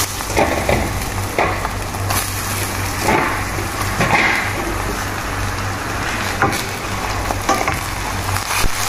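Raw chicken pieces sizzling in hot oil as they go into a stainless steel pot of sautéed onion, ginger and garlic. Irregular knocks and scrapes run through it, and near the end a wooden spatula stirs the pieces.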